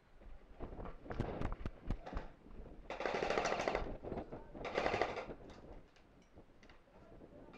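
Airsoft rifle firing two rapid full-auto bursts, a longer one about three seconds in and a shorter one near five seconds. Scattered sharp clicks and knocks come before them.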